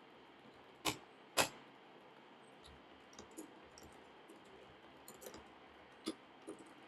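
Faint, scattered computer keyboard keystrokes: two sharper clicks about a second in, then a few lighter taps spread through the rest.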